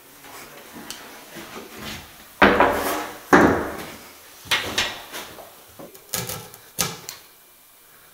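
Wooden knocks and clatter of timber being handled: two sharp, loud knocks about two and a half and three and a half seconds in, then several lighter knocks.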